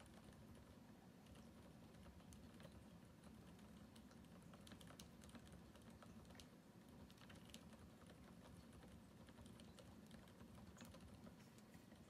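Faint, quick, continuous typing on a custom mechanical keyboard with Cherry MX Silent Red switches (65 g springs) in a D796 aluminum housing with an aluminum plate, each keystroke a soft click.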